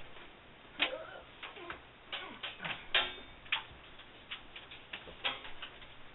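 Irregular sharp clicks and light taps of a metal measuring tape being handled and stretched around a water heater, about a dozen over several seconds. The loudest comes about three seconds in and rings briefly.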